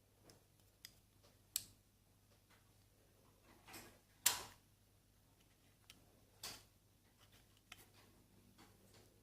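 Scattered light clicks and taps of small metal sliding-door lock parts being handled. The loudest knock comes about four seconds in, with fainter ones around it.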